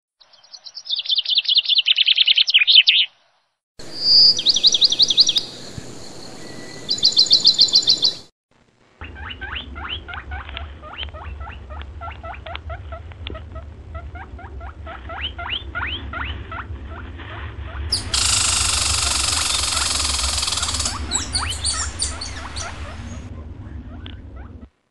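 Indian giant squirrel's loud rattling calls: rapid trains of sharp notes in three pieces cut together with brief silences between them. In the longest piece a fainter, fast clicking call runs over a low hum, and a loud hiss joins for about three seconds.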